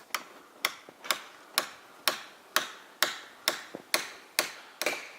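Hammer blows struck in a steady rhythm, about two a second, each a sharp crack with a short ring.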